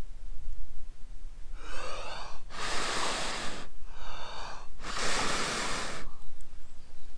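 A person blowing twice into a smouldering tinder bundle of dry grass and jute twine in a bushbox stove, each long blow after a quick in-breath: coaxing a cramp ball fungus ember to burst into flame.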